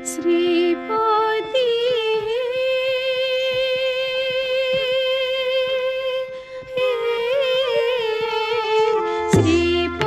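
Odissi dance music in raga Kalawati: a voice sings long, held notes with gliding ornaments over a steady drone. About nine seconds in, a drum stroke brings in the rhythm.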